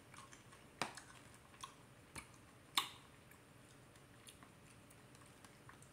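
A person chewing a crunchy snack chip with their mouth closed: four faint, sharp crunches over the first three seconds, the loudest a little under three seconds in.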